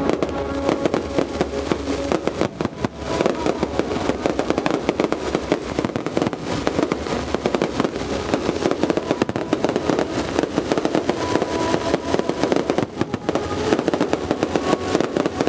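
Dense fireworks barrage: many shells bursting at once, a continuous stream of rapid bangs and crackling.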